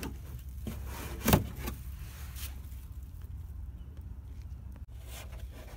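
A plastic trim tool prying at the fender liner cover in a minivan's wheel well: a few light plastic clicks and one sharp snap just over a second in, over a low steady rumble.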